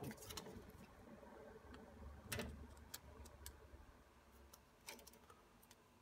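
Near silence broken by a handful of faint, scattered clicks and taps, the clearest a little over two seconds in: multimeter test probes and a plastic wiring-harness connector being handled while the probe is set on the connector pins.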